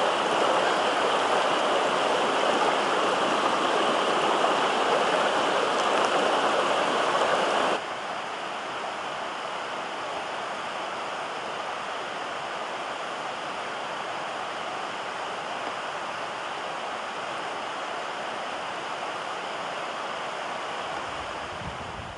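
Steady rushing noise like flowing water, which drops abruptly to a lower level about eight seconds in and carries on evenly.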